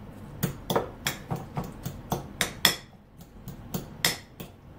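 Metal fork clinking and knocking against a ceramic bowl while mashing avocado: a run of irregular sharp taps, about a dozen, two or three a second, with a short lull about three seconds in.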